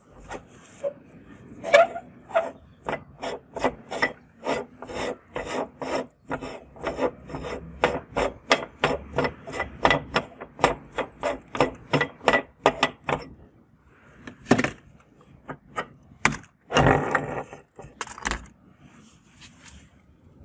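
Hand-cranked metal meat grinder being taken apart: the threaded front ring is twisted off, grating on crumb-clogged threads in short rasping strokes, about two or three a second, for some ten seconds. Then come a few louder scrapes and knocks as the plate, blade and auger are pulled out.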